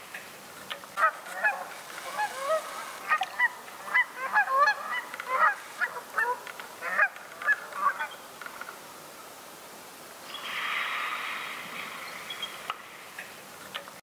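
A flock of Canada geese honking: many short, overlapping calls for several seconds that then die away. A soft rushing noise swells briefly near the end.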